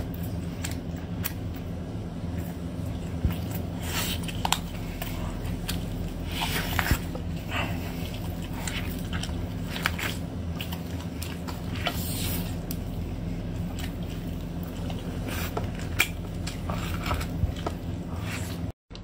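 A person biting into and chewing a roast poultry leg, close to the microphone: scattered short clicks and wet smacking and chewing noises over a steady low hum. The sound breaks off briefly near the end.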